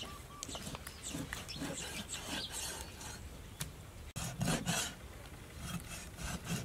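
Cleaver slicing raw beef on a wooden chopping board: repeated short strokes of the blade scraping through the meat and knocking the board, a few a second. The strokes are louder after a brief break about four seconds in.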